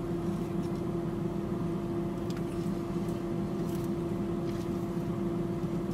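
Steady hum of a car's air conditioning and idling engine, heard inside the cabin, with a few faint clicks.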